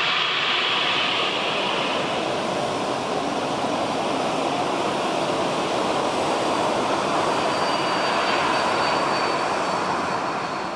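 Twin General Electric CF34-10E turbofans of an Embraer 190-200 regional jet running as it taxis: a steady, loud jet rush with a faint high whine partway through.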